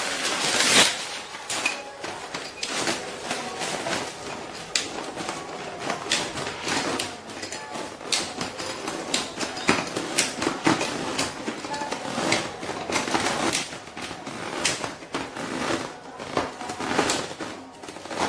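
Handling noises from a softbox being unpacked and worked: irregular clicks, knocks and rustling of fabric and metal parts.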